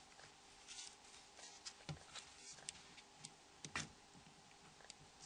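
Faint, scattered small clicks and taps of plastic parts as the Nokia N80 phone's A cover is unsnapped and lifted off with a plastic opening tool, with one sharper click near the end.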